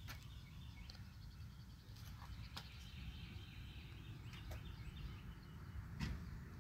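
Outdoor ambience: birds chirping faintly in the background over a steady low rumble, with a few sharp clicks.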